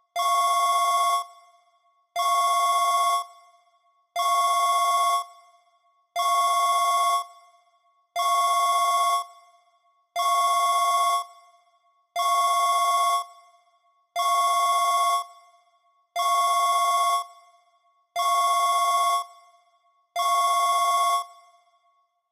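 i-mobile Hitz 315i mobile phone ringtone: a buzzy electronic ring of two tones sounded together, about a second long and repeated every two seconds, eleven times, in the manner of a telephone ring.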